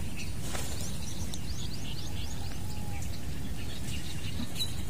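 A small bird calling a quick series of about ten short rising chirps over a second and a half, over steady low outdoor background noise.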